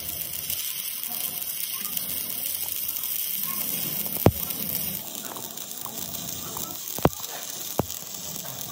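Steady hissing metalworking noise with three sharp knocks: the loudest about four seconds in, the other two close together near the end.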